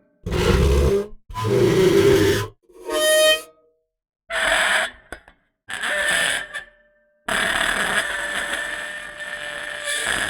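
A run of separate bowed-material sound effects: hard objects bowed with a cello bow, each a short rasping scrape with ringing tones through it. There are six takes with silent gaps between them, and the last one is a longer, steadier bowed tone of about three seconds.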